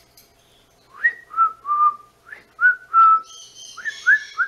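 White-bellied caique whistling a tune: a run of short whistled notes starting about a second in, each swooping up then holding, with a few notes held longer.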